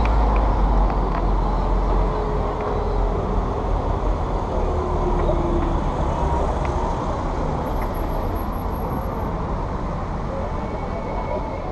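Road vehicles passing slowly close by, their engines and tyres running, over a steady low rumble. A faint engine tone glides slightly downward between about two and six seconds in.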